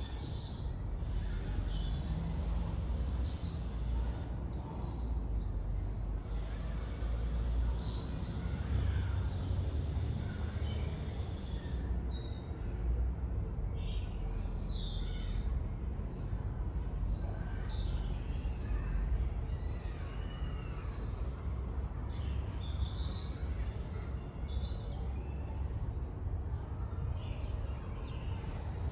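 Several wild birds chirping and singing in short, overlapping calls, over a steady low rumble of traffic from a nearby high street.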